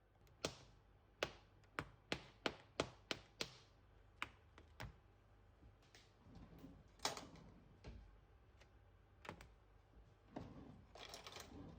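A quick run of about ten sharp taps and knocks in the first few seconds, then softer handling and rustling sounds.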